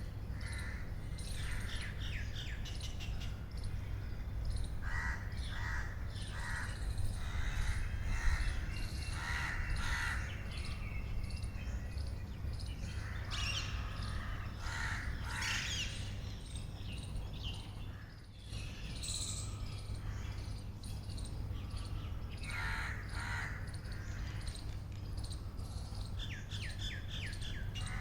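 Birds chirping and calling in repeated short phrases, over a steady low hum.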